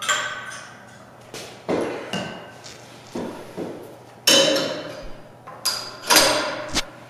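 A string of sharp metallic clinks and clanks, about a dozen at irregular spacing, each with a brief ring. The loudest come about four and six seconds in. The sound is metal gym gear and a metal water bottle being handled and set down.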